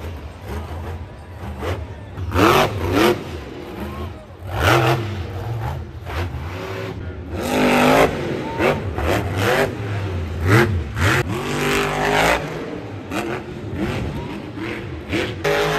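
Monster truck's supercharged V8 revving hard in repeated surges, the pitch climbing and dropping again and again through wheelies and jumps.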